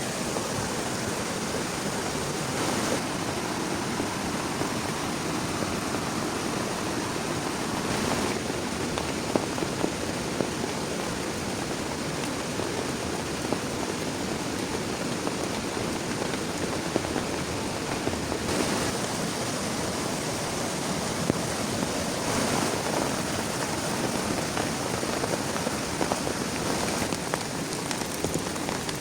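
Heavy rain falling steadily, with scattered sharper drop hits standing out above the even hiss.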